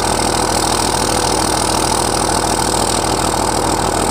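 A second-generation Dodge Ram's 5.9 Cummins inline-six turbodiesel idles steadily through a straight-pipe MBRP exhaust, heard at the tailpipe. The engine is still cold from a start at about 20 °F and stays at its normal low idle, without kicking into high idle.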